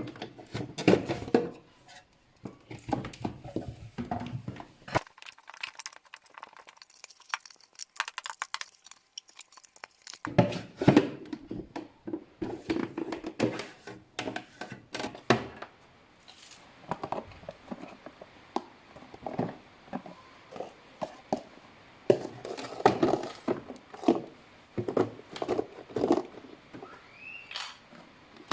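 Food packaging and containers being handled: plastic crinkling and tearing, with repeated knocks and clatter as items are picked up and set down. About five seconds in there is a quieter stretch of light rustling only, and a short rising squeak comes near the end.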